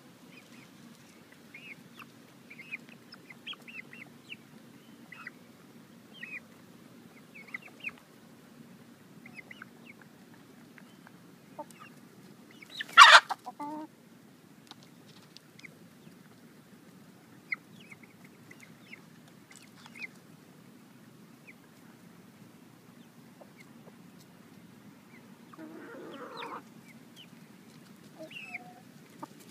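Backyard hens clucking and giving short high chirps as they forage, over a steady low hum. A single loud, sharp burst cuts in near the middle, and a longer, lower call comes near the end.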